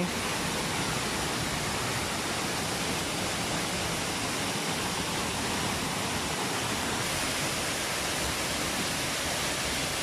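Steady rushing of a tall waterfall, an even noise across all pitches with no change in level.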